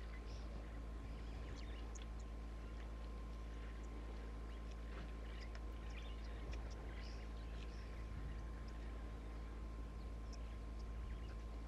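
Faint outdoor ambience: a steady low rumble and a thin steady hum, with scattered faint high chirps and ticks.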